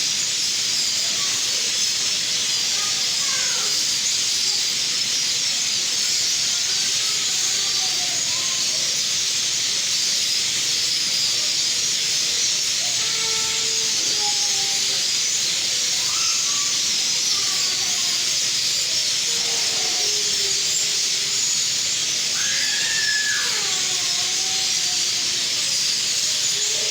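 A large flock of birds calling all at once, making a dense, steady, high twittering hiss. Scattered lower single calls that slide up and down in pitch stand out now and then, the clearest a rising and falling call near the end.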